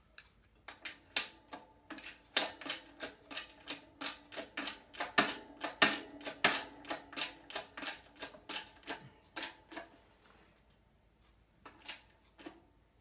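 Quick metallic clicking, two or three a second with a short ring, from the pump handle of a hydraulic shop press's bottle jack being worked to press a universal-joint bearing cap into a driveshaft yoke. The clicking stops about ten seconds in and a few more clicks come near the end.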